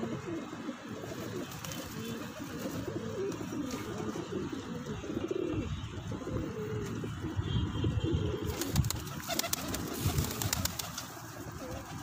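A flock of pigeons cooing, many low, wavering coos overlapping, with a patch of clicking and wing rustle a little past the middle.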